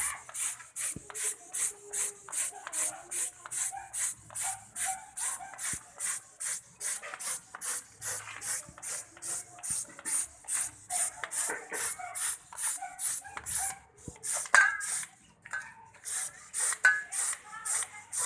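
Hand-pump Baygon-type sprayer loaded with paint, pumped quickly: a short hiss of spray on every stroke, about two to three a second, with the plunger rubbing. The pumping pauses briefly about two-thirds of the way in, with a louder knock, then resumes.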